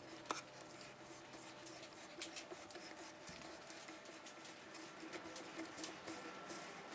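Hand tap cutting threads in a metal block, turned with a T-handle tap wrench: faint, irregular small clicks and scratchy creaks as the tap cuts and its chips break, with one sharper click near the start.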